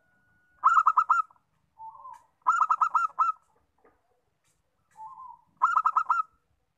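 A zebra dove (a local perkutut) singing: three bursts of quick, rapidly repeated cooing notes a couple of seconds apart. The last two bursts each open with a softer, lower note.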